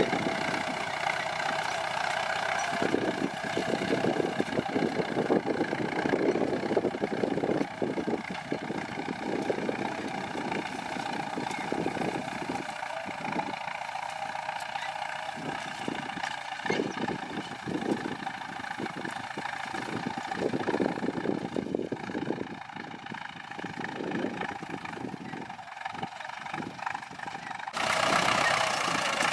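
Ford 6610 tractor's four-cylinder diesel engine running steadily, growing louder about two seconds before the end.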